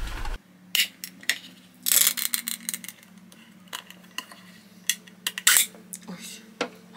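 An Asahi Super Dry full-open beer can being opened: the ring tab snaps the seal with a short hiss about two seconds in, then the whole metal lid is peeled off, with light metallic clicks and scrapes.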